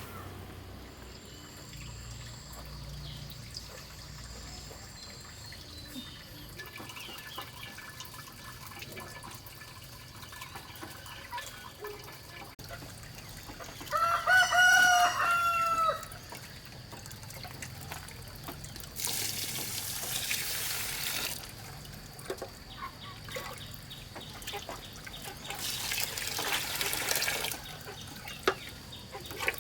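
A rooster crows once, loudly, about halfway through. Later come two bursts of running or splashing water, each a second or two long.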